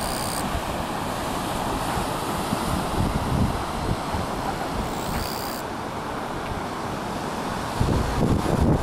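Sea surf washing and breaking over shoreline rocks, a steady rushing wash, with wind buffeting the microphone in low gusts near the end.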